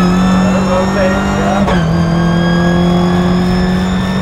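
Toyota GR86 Cup race car's 2.4-litre flat-four engine accelerating, heard from inside the cabin. Its pitch climbs steadily, drops sharply at an upshift on the sequential gearbox about one and a half seconds in, then climbs again.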